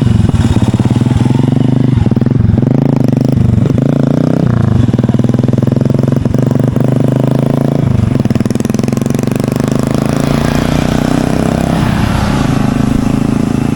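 A 125 cc Honda CB Shine single-cylinder engine running hard through a loud SC Project full-system aftermarket exhaust, accelerating with several brief breaks in the note in the first eight seconds as it goes up through the gears, then holding a steady high note.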